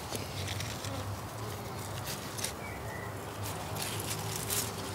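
Coarse burlap root-ball wrap rustling faintly as hands pull its ends into a knot, over a low steady buzz.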